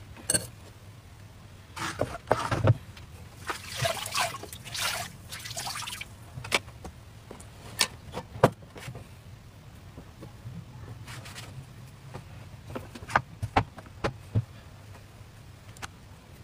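Thin batter sizzling and crackling on the hot plate of an electric dip-style crepe maker. The hissing is loudest for a few seconds early on and is dotted with sharp clicks and taps.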